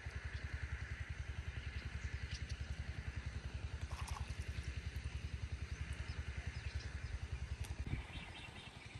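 Small engine running with an even, rapid low chug, about ten beats a second, that stops about eight seconds in.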